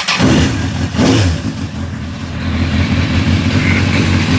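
Honda CBR1000RR Fireblade's inline-four engine firing up: it catches, blips briefly about a second in, then settles into a steady idle.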